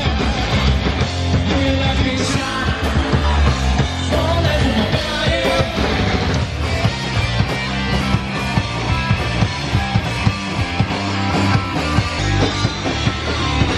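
Loud punk rock played by a band: electric guitar, bass guitar and drums, with frequent drum hits.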